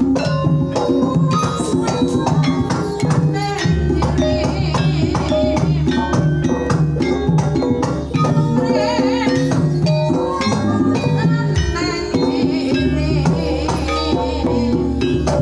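Banyumasan gamelan music: kendang drum strokes, a mallet-struck wooden keyed instrument and a bronze gong play a gending. A female sinden sings into a microphone over it in wavering phrases through the second half.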